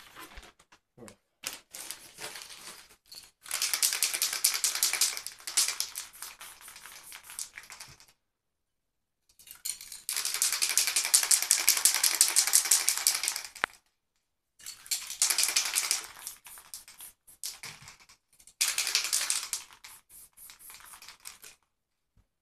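Aerosol spray-paint can hissing in several bursts of a few seconds each, with a fine crackling sputter, stopping abruptly between bursts.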